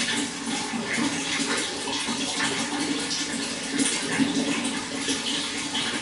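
Running water, a steady splashing flow with many small irregular splashes.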